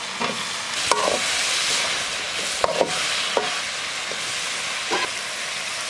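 Chicken sizzling in oil in a metal wok while a metal spatula stirs it, scraping and clinking sharply against the pan several times, some clinks ringing briefly.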